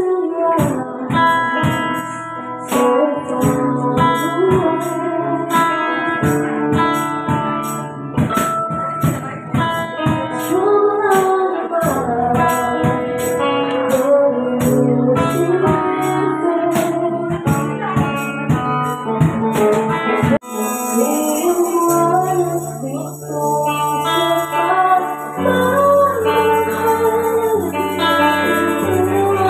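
Live acoustic band music through a PA: a woman singing over acoustic guitar, with high percussion ticks keeping a steady beat about twice a second. About twenty seconds in the beat stops suddenly and the music carries on with sustained low bass notes under the singing.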